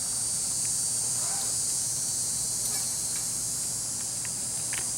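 Steady, high-pitched drone of an insect chorus, with a few faint ticks near the end.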